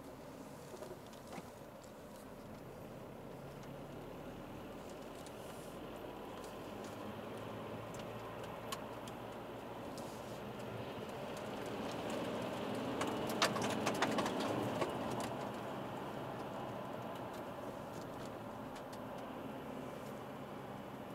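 Cabin noise of an Alfa Romeo 159 with the 1.9 JTDM four-cylinder turbodiesel under way: steady engine and tyre noise that builds up to about two-thirds through, with a brief cluster of sharp crackling clicks at the loudest point, then eases off again.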